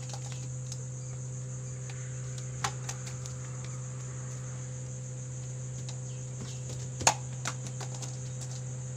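Crickets chirping steadily in a high-pitched drone over a low steady hum, broken by two sharp taps, a light one about two and a half seconds in and a louder one about seven seconds in.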